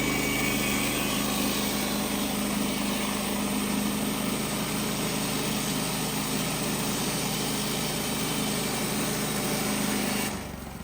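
Kohler gasoline engine of a Woodland Mills HM130 Max portable bandsaw mill running steadily, cutting off abruptly about ten seconds in.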